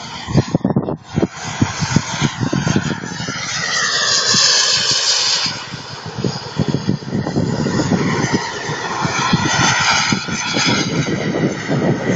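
Turbine engine of an RC model jet, the Aviation Design Diamond, making fast low passes. Its whine and rush swell loudest about four to five seconds in and fall in pitch as it flies by, then rise again on a second pass near the end. Wind rumbles on the microphone throughout.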